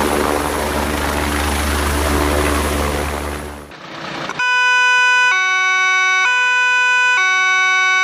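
Steady helicopter engine and rotor noise for the first few seconds, which stops short. About a second later a two-tone emergency-vehicle siren starts, switching between a high and a low note roughly once a second.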